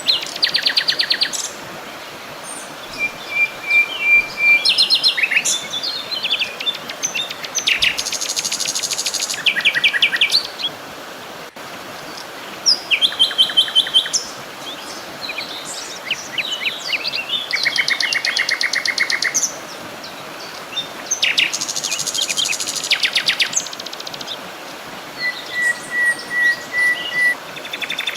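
Several songbirds singing together: fast trills and chirping phrases overlapping one another, with a steady hiss of background noise underneath.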